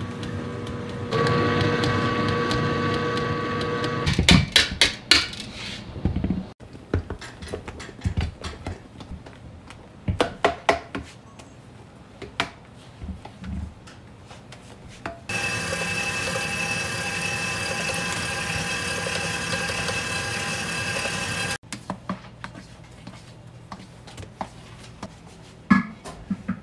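Large planetary stand mixer whipping batter with a wire whisk, its motor whining steadily and stepping up about a second in. This is followed by metal clanks, then a spatula scraping and knocking against the stainless steel mixer bowl. Later a second steady machine whine runs for several seconds and stops abruptly.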